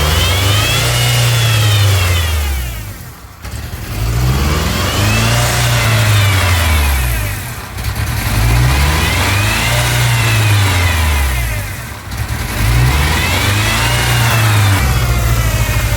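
1999 Ford Ranger's 2.5-litre four-cylinder engine, which has a massive vacuum leak, revved up and let fall back four times in a row, each rise and fall lasting about four seconds.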